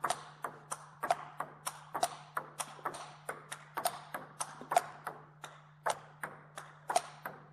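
Table tennis rally: the ball clicking off the paddles and the table in a quick, even rhythm, about three to four hits a second, as a backhand block answers repeated loop drives.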